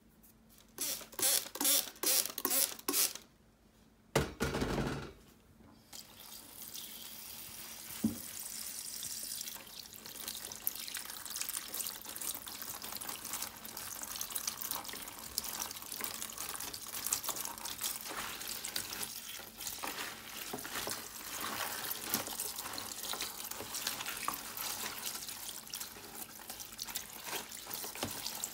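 A kitchen tap runs steadily onto salad greens in a plastic washing-up bowl in a stainless steel sink as a hand rinses the leaves, after a few short, louder noises in the first five seconds. There is a single knock about eight seconds in.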